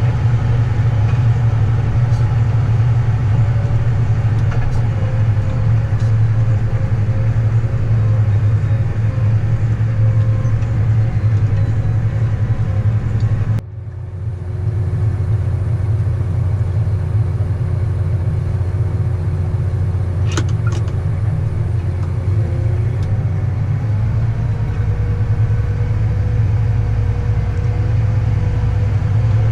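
A vehicle engine running steadily, a constant low drone. About halfway through it drops out suddenly for a moment, then carries on much the same.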